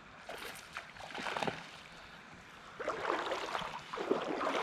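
Water splashing and sloshing in a shallow creek, in irregular bursts that grow louder about a second in and again from about three seconds in.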